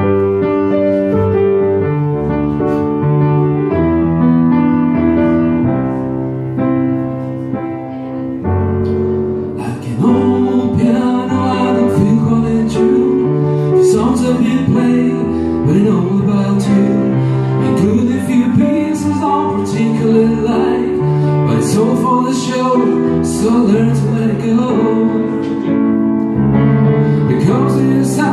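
Grand piano playing a song introduction. About ten seconds in, a man's singing voice joins over the piano accompaniment.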